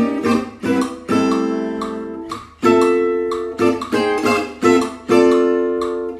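Gypsy jazz acoustic guitar with an oval soundhole (Selmer-Maccaferri style) being strummed: full minor chords struck and left to ring and fade, with quick short strokes between them.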